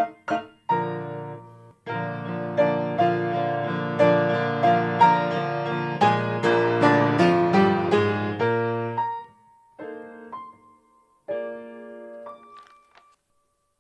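TOYO A-25 grand piano playing a waltz solo: a long pedalled run of chords over a sustained bass, then a few separate, quieter chords with pauses between them.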